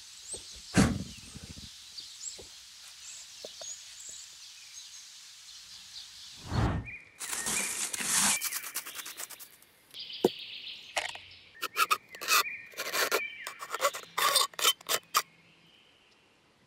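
Woodland birds chirping, with one sharp knock about a second in. In the second half, a knife blade cuts into a thin steel tin can, making a run of sharp metallic clicks and scrapes.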